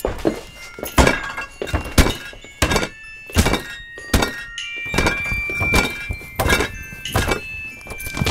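Staged fight sound effects: a string of heavy punch thuds and smacks, about one a second.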